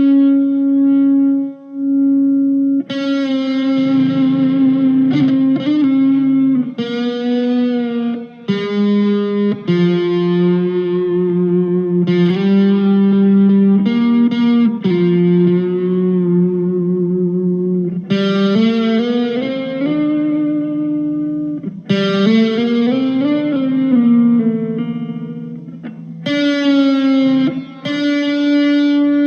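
PRS 245 electric guitar played through a Blackstar ID Core V2 amp: a single-note lead line of long held notes, with several pitch bends in the second half.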